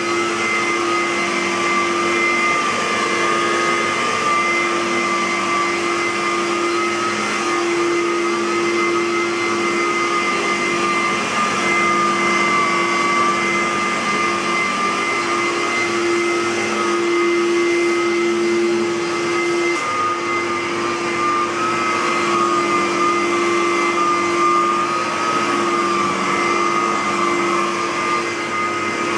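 Aerus Lux Guardian (U147E) bagged upright vacuum cleaner running steadily: airflow noise with a steady motor hum and a slightly wavering high whine.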